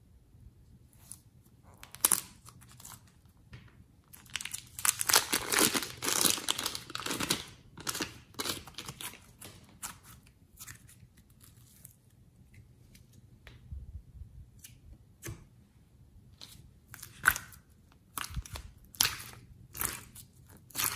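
Thin plastic piping bag crinkling and tearing as it is worked open around soft clay. The tearing is loudest for a few seconds early in the stretch, followed by scattered short crinkles and clicks of hand handling.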